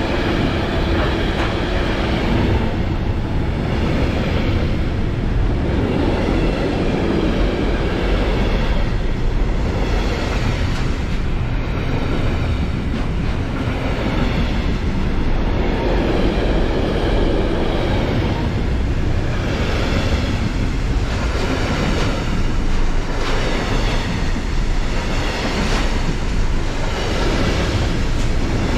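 A train passing close by for the whole stretch: a steady rumble of wheels on rails with a regular pulse every second and a half to two seconds as the wheelsets go by.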